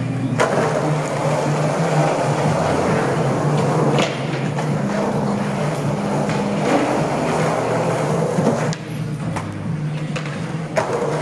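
Skateboard wheels rolling over rough concrete with a steady rumble, broken by a few sharp clacks of the board.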